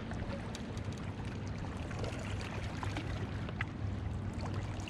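Distant motorboat engine droning steadily, with small waves lapping against the shore and a few faint clicks.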